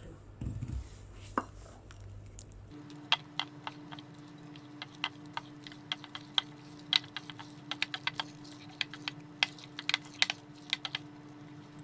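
Mixing spoon clicking against a bowl in quick, irregular taps while flour is stirred into a thick banana and egg batter.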